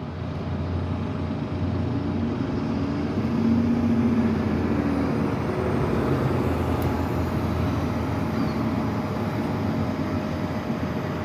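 City transit bus driving past close by. Its engine and drivetrain noise swells to the loudest point about four seconds in, with a low whine, then slowly fades as the bus pulls away.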